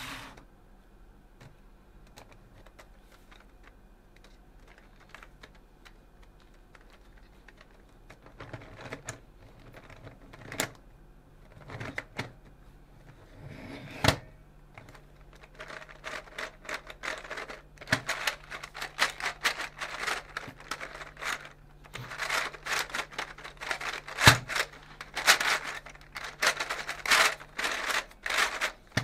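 Meffert's XXL Gear Cube, a plastic gear puzzle, being turned by hand: its interlocking gear pieces click and rattle as the faces rotate. The clicks are faint and sparse for the first several seconds, then grow into a fast, dense clatter through the second half.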